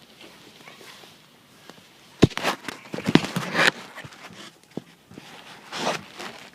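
Cats scampering and tussling at play: a sharp thump about two seconds in, then a second or so of scuffling and scrabbling, and another short scuffle near the end.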